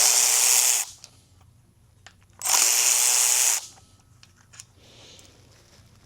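A handheld power tool runs in two short bursts of about a second each, the second about two and a half seconds in.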